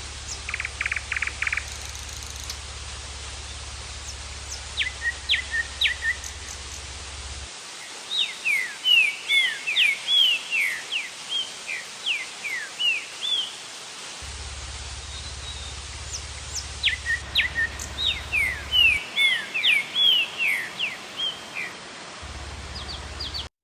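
A songbird singing phrases of quick, downsweeping whistled notes, repeated several times, over the steady rushing of the waterfall.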